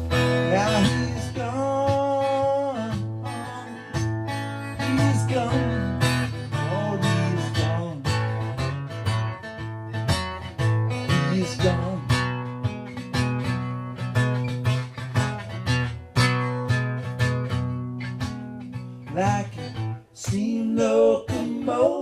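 Acoustic guitar playing an instrumental passage between sung lines of a song, strummed and picked steadily.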